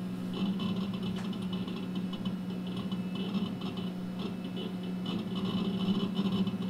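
NeXT Cube computer running with a steady hum while it loads after login, with irregular runs of fast, scratchy clicking from its hard disk at work.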